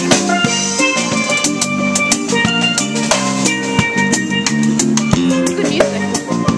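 Live steel drum band playing: a steel pan melody of struck ringing notes over acoustic guitar and electric bass.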